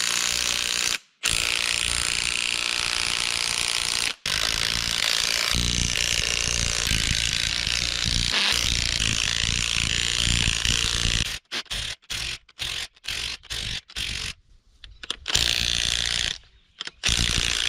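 Wrench tightening the pin of a shackle at a rope connection: a rapid mechanical rattle running for about eleven seconds with two brief breaks, then a string of short bursts.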